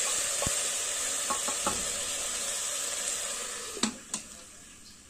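Pumpkin and chickpeas sizzling in hot oil in a pressure cooker while a wooden spatula stirs them, with a few light knocks of the spatula against the pot. About four seconds in come two sharp clicks, and after them the sizzling falls away to a faint hiss.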